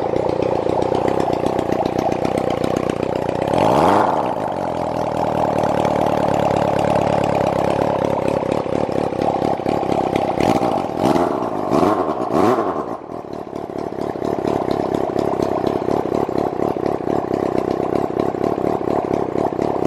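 Suzuki Bandit 250V's four-cylinder engine idling steadily, blipped once about four seconds in and then given a quick run of three or four throttle blips a few seconds later, each time falling straight back to idle. The engine revs up cleanly with no abnormal noise.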